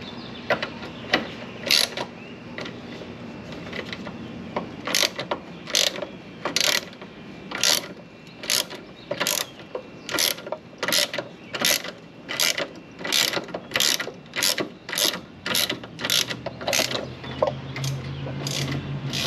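Hand ratchet wrench being worked back and forth on a bolt, its pawl clicking on each return stroke, about one stroke a second from about five seconds in.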